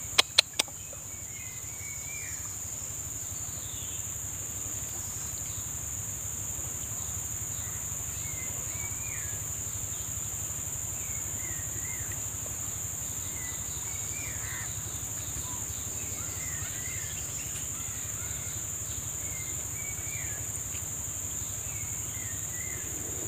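Steady high-pitched drone of insects such as crickets, with short bird chirps every second or two. Three sharp clicks come right at the start.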